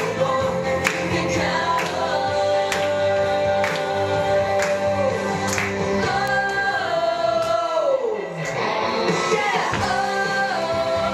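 A song with singing voices over a band, with a steady drum beat about once a second. About eight seconds in, a long held note slides down.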